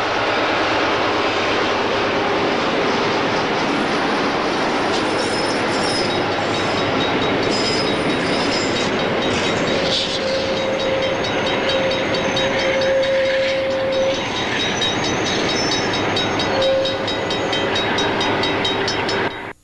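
VIA Rail LRC passenger train passing at speed: a loud, steady rush of wheels on rail. A train horn sounds one held note for about four seconds from about halfway through, and again briefly near the end, where quick regular clicks of wheels over rail joints come through before the sound cuts off.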